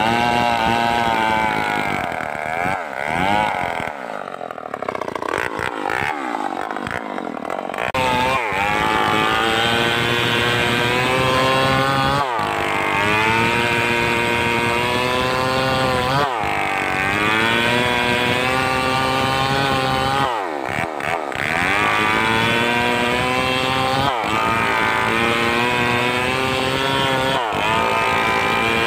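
Stihl 038 two-stroke chainsaw running hard at high revs, its pitch dipping sharply and recovering about every four seconds. For a few seconds near the start it runs lower and more unevenly.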